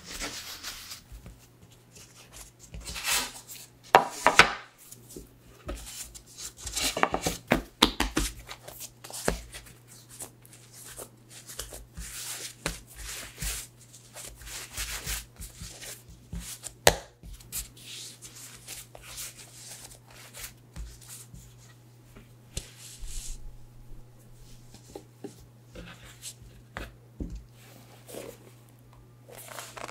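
Hands rolling and shaping soft pretzel dough on a wooden cutting board: soft rubbing and patting of dough against the wood, with a few sharp knocks on the board. Near the end a cloth towel rustles as it is laid over the dough. A faint steady low hum runs underneath.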